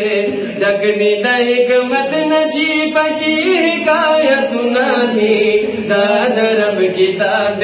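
Two men singing a naat together, a devotional chant with voices only and no instruments.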